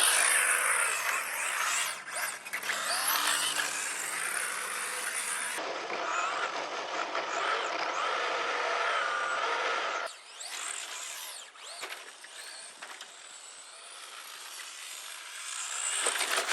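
Electric motor of a 1:10-scale RC car whining as it revs up and down, with tyre noise on concrete. It is louder through the first ten seconds, drops away, then grows again near the end as the car comes closer.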